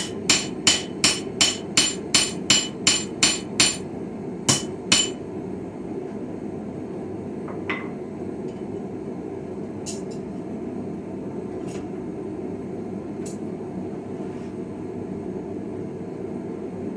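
Hammer blows ringing on an iron anvil while forging a chisel: about ten quick strikes at roughly three a second, then two more a little apart, then they stop, leaving a few faint clicks. A steady low rushing noise runs underneath.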